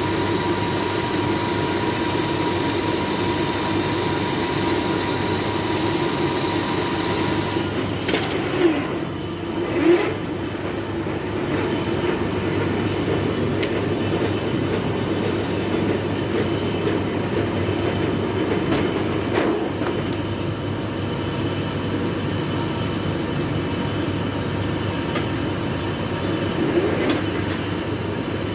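Large metal lathe turning a heavy iron workpiece, running steadily. A high steady whine stops about eight seconds in, and brief metallic squeals come a little after that and again later.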